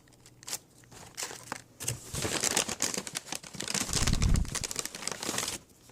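Takeout food packaging crinkling and rustling as items are handled and pulled out, with a low thump about four seconds in.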